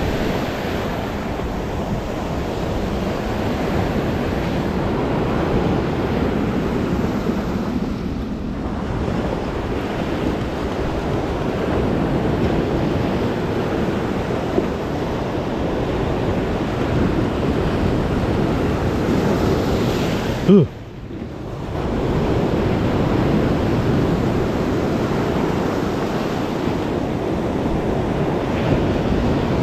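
Lake Superior surf breaking and washing over a rocky cobble shore, a steady rushing that swells and eases, with wind buffeting the microphone. A short sharp sound about two-thirds of the way through, then the surf briefly drops away.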